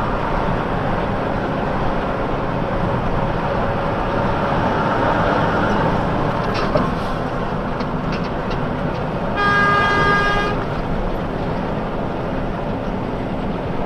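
Steady road and engine noise from a truck driving at freeway speed, with one horn blast lasting about a second a little past the middle.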